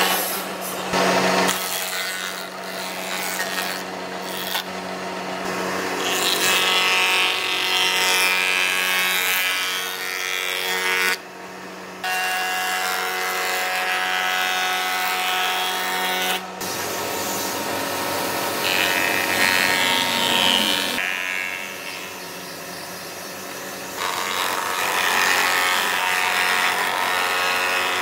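Industrial wood planer running and planing an old weathered beam: a steady motor hum and cutterhead whine over the rough, rasping noise of the knives chipping the wood. The cutting eases off briefly a couple of times, about eleven seconds in and again over a few seconds near the end.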